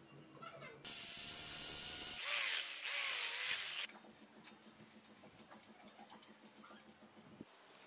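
A handheld electric power tool's motor runs for about three seconds. It starts abruptly about a second in with a high whine, wavers in pitch, then stops. Faint taps and clicks follow.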